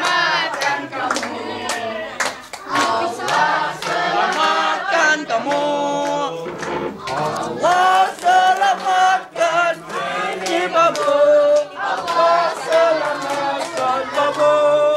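A group of people singing together, men's and women's voices, with some hand clapping.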